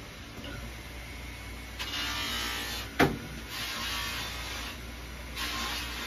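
Bench polishing motor running with a rouge-charged buffing wheel, which hisses in three bursts of about a second each as work is pressed against it. A sharp knock about three seconds in.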